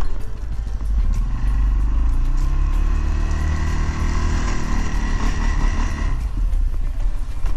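CFMOTO CForce 600 ATV's engine revving under load as it pushes a plow blade full of snow. The pitch climbs over the first few seconds with a whine above it, then eases off and drops about six seconds in.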